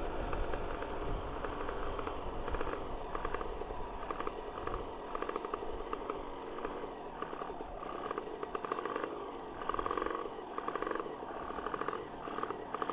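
Two-stroke single-cylinder engine of a Yamaha V80 fitted with a Kawasaki Ninja R cylinder block and head, running on the road, its note rising and falling as the throttle is opened and eased.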